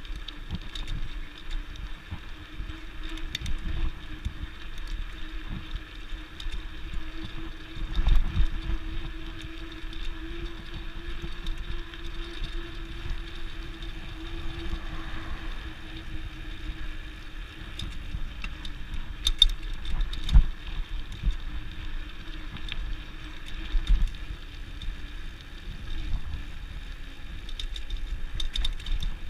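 Bicycle rolling along a concrete sidewalk: a steady tyre rumble and hum mixed with wind noise on the microphone, with a few louder thumps from jolts over the slab joints.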